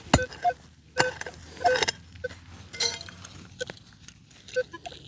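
Metal detector sounding a string of short, irregular beeps at two or three different pitches, mixed with a few sharp clicks and knocks.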